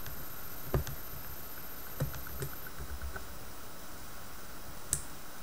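About four light, sharp clicks from metal tweezers and a welding electrode being handled at a small spot welder, over a steady hiss.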